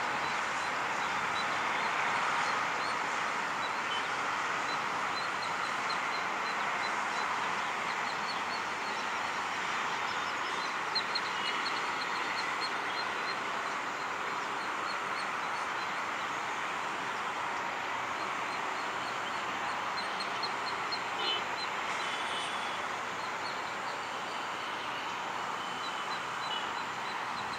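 Steady background noise, with faint, rapid high trills recurring every few seconds through it.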